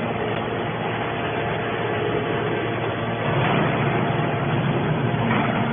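Small hydraulic scrap metal baler running: the steady hum and churn of its motor and hydraulic pump, a little louder from about three seconds in.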